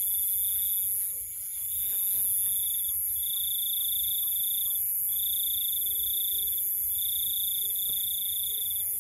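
Night insects trilling: a high, finely pulsed trill in repeated stretches of about a second, broken by short pauses, over a steady very high-pitched insect hiss.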